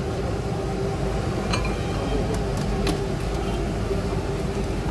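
Outdoor street-food stall ambience: a steady low rumble with background voices, and a few light clinks of utensils against bowls, sharpest about three seconds in.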